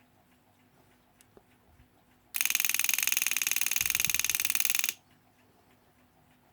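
Mechanical wind-up alarm clock's alarm going off: the hammer rattles rapidly against the bell for about two and a half seconds, starting a couple of seconds in and cutting off abruptly. The alarm is ringing on test after the movement's reassembly.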